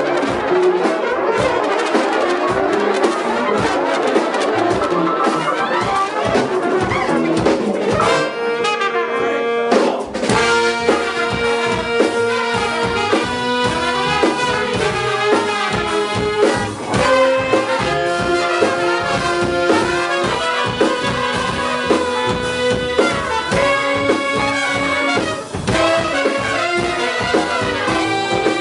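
Brass-led ensemble playing free-form jazz-like music. For the first eight seconds the playing is a dense tangle of overlapping notes; after that, long held notes shift pitch every second or two over a steady patter of percussive clicks.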